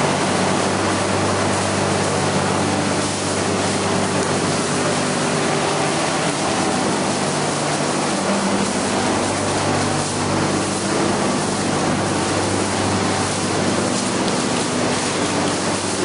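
Steady drone of running machinery in a dairy farm's utility room: an even hiss with a low hum beneath it.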